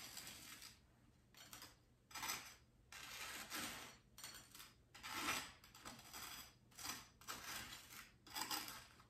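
A table knife scraping across crisp toast as butter is spread, in about ten short strokes.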